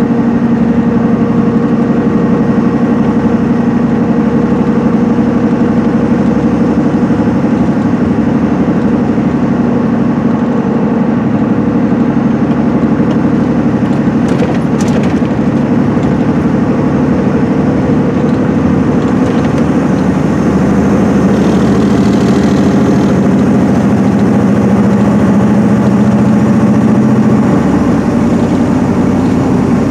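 Cabin sound of an MCI D4500CL coach cruising at highway speed: a steady drone from its Cummins ISM inline-six diesel with its Allison automatic gearbox, over tyre and road noise. The engine note changes slightly near the end.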